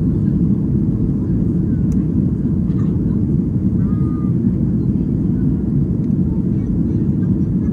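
Steady, deep rumble of cabin noise inside a Ryanair Boeing 737 in flight: engine and airflow noise heard from a window seat.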